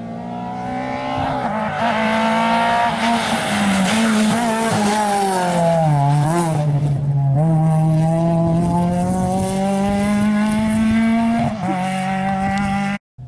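Rally car engine at high revs coming closer. Its pitch wavers and dips as the car goes past, then climbs steadily as it accelerates away. The sound cuts off abruptly near the end.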